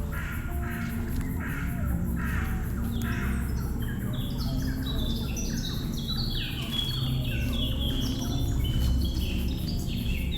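Birds calling: a run of harsh, hoarse calls about one every second for the first three seconds, then a busy chatter of many short, falling chirps. A steady low rumble lies underneath.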